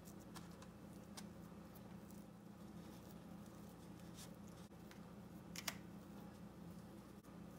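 Faint taps and scrapes of a metal fork spreading mashed potato over the meat filling in an aluminium foil tray, with a sharper click about five and a half seconds in, over a low steady hum.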